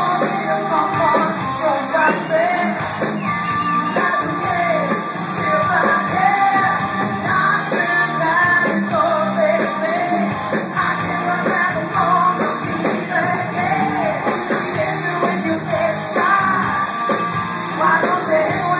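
Live rock band playing with a woman singing lead, heard through a phone's microphone from within the crowd.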